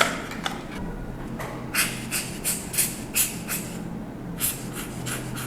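Short airy swishes, about three a second in two runs, from cleaning the inside of a vintage film camera, over a steady low hum.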